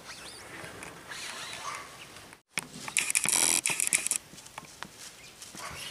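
Crackly rustling. After a brief dropout, a loud burst of it lasts about a second, with fainter scattered rustles around it.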